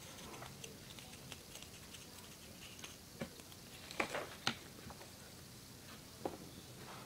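Wooden craft stick stirring white school glue in a small plastic cup, knocking and scraping against the cup: faint scattered clicks, with a few louder taps a little past the middle and one more near the end.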